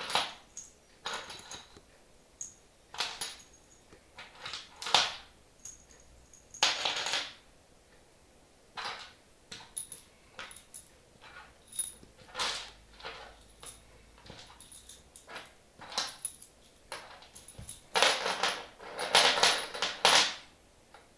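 Metal screws and small fittings clinking as they are picked out of a plastic bag and set down one by one on a wooden floor, in scattered irregular clicks. A few longer stretches of plastic bag crinkling, about seven seconds in and again near the end.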